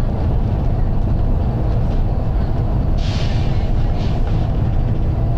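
Volvo B9TL double-decker bus on the move, heard from the top deck: its six-cylinder diesel and road noise make a steady low rumble. A short burst of hiss comes about three seconds in, with a fainter one a second later.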